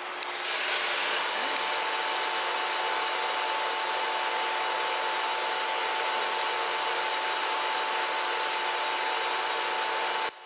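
Manual metal lathe boring out a 4140 steel cylinder gland: the spinning workpiece and boring tool make a steady cutting noise with chips breaking off, and a steady whine runs through it. It stops abruptly near the end.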